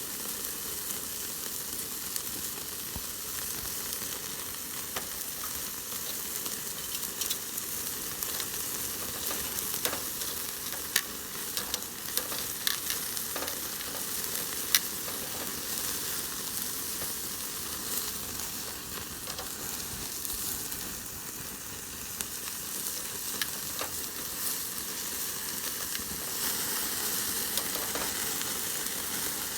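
Meat sizzling over a charcoal fire, a steady hiss with frequent sharp pops and crackles as fat spits onto the coals.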